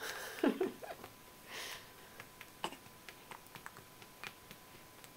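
A baby's short voiced sounds: a brief falling squeak about half a second in and a smaller one just after, then a soft breath and a few faint clicks.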